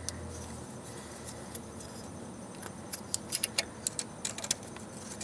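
Light metallic clicks and clinks in an irregular cluster over about two seconds, from the shift cable end and its horseshoe retaining bracket being worked by hand into the manual transmission's cable housing.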